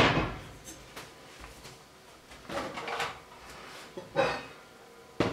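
Stainless steel pot with a steamer insert set down on the stove with a sharp metal clunk that rings briefly, followed by a few lighter knocks and clatter of kitchenware being handled.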